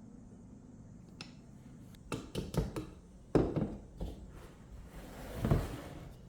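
Kitchen handling sounds: a string of light clicks and knocks of utensils and dishes set down on a counter, one heavier knock in the middle, and a short rustle near the end.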